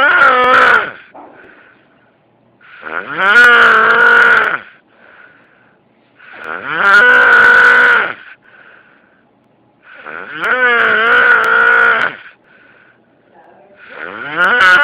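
A man snoring loudly in his sleep, with long, pitched, moo-like snores about every three and a half seconds, each rising in pitch as it begins; he blames the sound on being sick.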